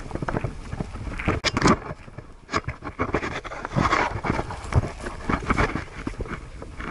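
Irregular scraping and rustling in uneven bursts from a camera strapped to a Siberian husky, rubbing against the dog's fur as it moves over grass.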